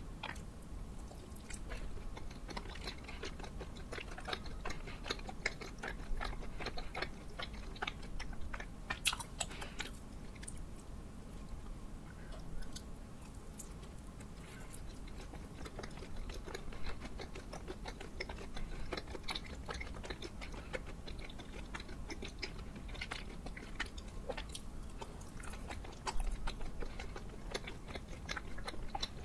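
A person chewing and biting soft, sticky chapssal-tteok (Korean glutinous rice cakes with cream and bean-paste fillings), with many small wet mouth clicks throughout.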